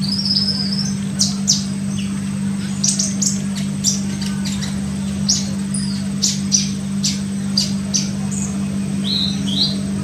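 Olive-backed sunbird calling: an irregular run of short, sharp high chirps, with a couple of upward-slurred notes near the end, over a steady low hum.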